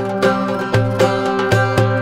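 Background instrumental music led by a plucked string instrument, its notes struck sharply at a steady pace of about two a second over a held low note.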